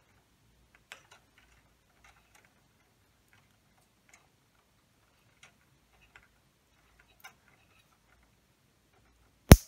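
Faint scattered ticks of fine wire and a small plastic lever-clip wire connector being handled. Near the end comes one sharp, loud click as the connector's lever snaps shut on the new lamp's wire.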